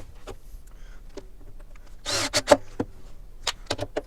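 Scattered sharp clicks and knocks with a few short rasping bursts, clustered about two seconds in and again near the end: a drill, screws and a metal drawer slide being handled while screws are driven into the cabinet side.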